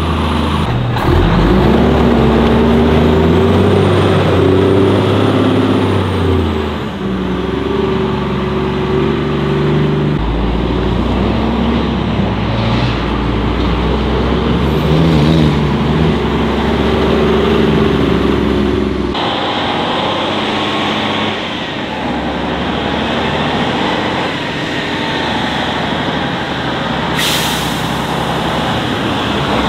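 Heavy Tatra off-road trucks' diesel engines running and revving as they crawl over rough ground, the engine pitch rising and falling through the gears. A short hiss comes near the end.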